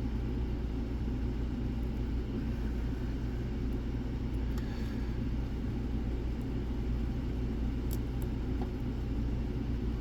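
Steady low background rumble, with a few faint, short metallic ticks as lock picks work a basi pin-tumbler lock with side sliders: a couple around the middle and a sharper pair near the end.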